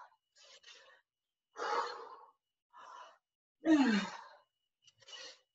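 A woman breathing hard from exertion, in time with a dumbbell exercise: quick breaths and loud voiced exhales like sighs, the loudest a little before the end, with a falling pitch.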